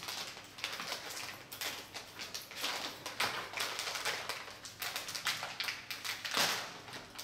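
Thin plastic snack bag crinkling and crackling in irregular bursts as it is handled and held up to the face.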